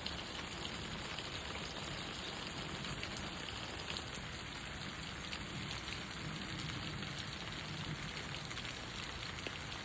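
Steady rain falling on leaves and plants, a dense, even patter with many small drop taps scattered through it.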